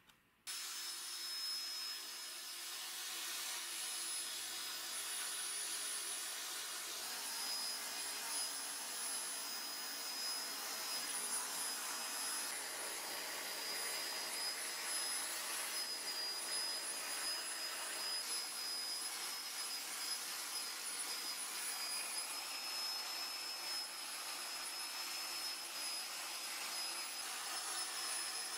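Small electric motor spinning an abrasive wheel and a wire cup brush against steel pliers, grinding and brushing off rust. A steady high whine sits over a hissing scrape, starting suddenly about half a second in.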